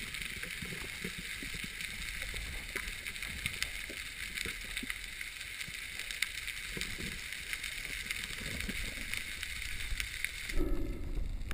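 Underwater sound through a GoPro's waterproof housing during a spearfishing dive: a steady hiss with scattered faint clicks and low knocks. Near the end the hiss drops away and water sloshing takes over as the camera comes up toward the surface.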